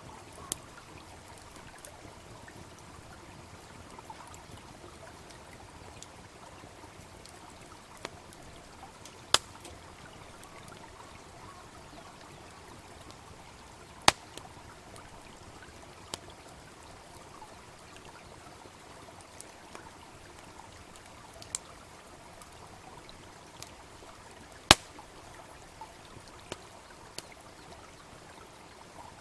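Steady babbling of a shallow brook, with a wood fire crackling and snapping over it: three sharp, loud pops and a scattering of fainter ticks.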